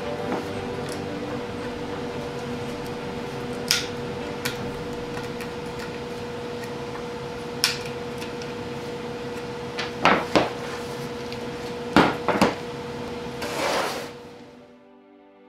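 Sharp wooden clicks and knocks of laser-cut plywood parts being handled and their tabs pressed into slots, a few single knocks and then two quick pairs, over a steady hum. A brief rustle near the end, and soft music comes in at the very end.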